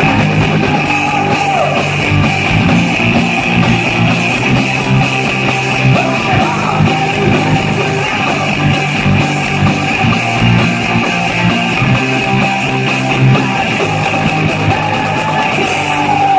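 Rock band playing live, loud, with electric guitar prominent.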